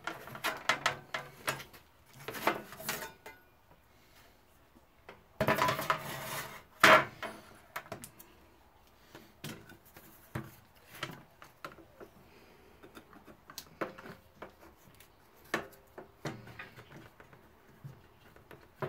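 Aluminum sheet being handled on a workbench: scattered clinks and knocks of metal and tools. About five to seven seconds in comes a louder scrape and clatter of the sheet.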